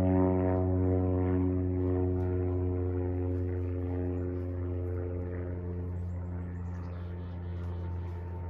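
Single-engine propeller airplane droning overhead with a steady, even engine-and-propeller tone. It fades gradually as the plane flies away.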